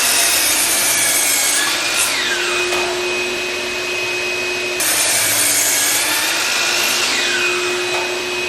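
Electric power saw cutting lumber twice. Each time the motor runs steadily through the cut, then winds down with a falling whine, about two seconds in and again about seven seconds in; the saw starts up again in between.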